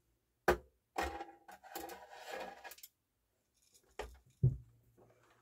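Screwdriver and small screws being handled on the CD changer's mechanism: a sharp click about half a second in, a stretch of scraping and rattling, then two knocks near the end.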